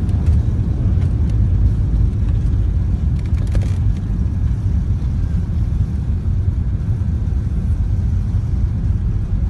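Airbus A380 four-engine jetliner taking off: a steady, dense low rumble of engine and airflow noise.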